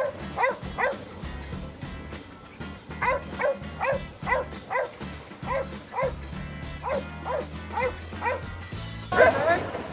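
A dog barking over and over, about two barks a second, in an excited fetch game at the water's edge, with background music underneath. A louder burst comes near the end.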